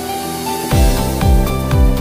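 Background music: a rising swell, then a steady beat with a bass drum about twice a second comes in about two-thirds of a second in.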